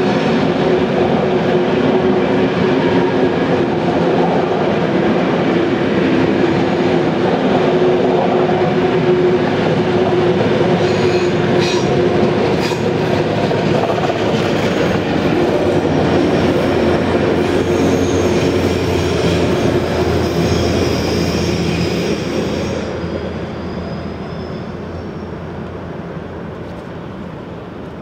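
A train of passenger coaches hauled out by a steam locomotive rolling past at low speed. The wheels clatter over the rail joints with a steady squealing tone. It fades from about 22 s in as the last coach draws away.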